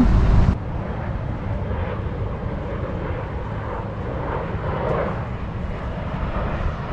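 Steady low outdoor rumble, swelling a little about five seconds in. It is louder for the first half second, then drops suddenly.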